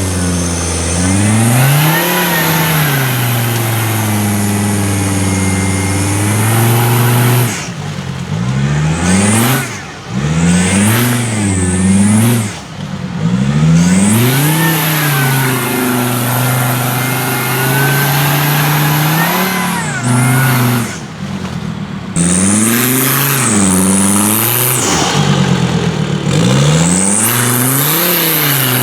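Off-road 4x4's engine revving up and dropping back again and again, held at high revs for several seconds at a time, as the vehicle is driven over rough off-road terrain.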